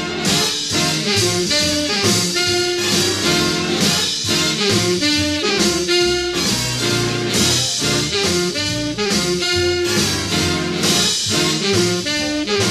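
Background music: upbeat swing jazz with saxophone and brass over a steady beat.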